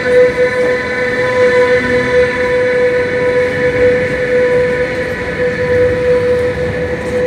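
Commuter train pulling out of an underground platform, giving a steady high whine under a rumble of wheels and running gear.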